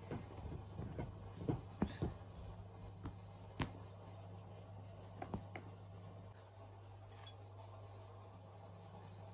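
Faint scattered taps and rustles of a Persian cat pawing and rolling on a carpet strewn with catnip, a few sharper knocks in the first five seconds and then quieter, over a steady low hum.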